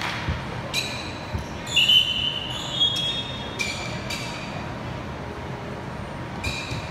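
Athletic shoes squeaking sharply several times on a hardwood gym floor, the loudest squeak about two seconds in, with a few dull thuds of a ball bouncing on the floor.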